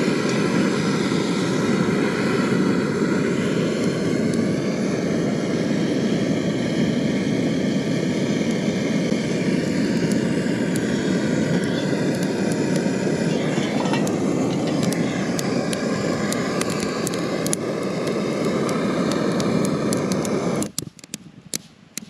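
Handheld propane torch burning with a loud, steady rushing hiss as its flame is held on wet kindling to get it to light. It cuts off suddenly near the end, leaving a few short clicks.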